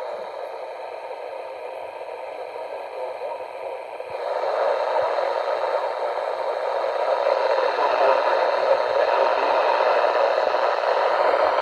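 Steady hiss of static from a weather radio receiver, with no voice or tone, growing louder about four seconds in.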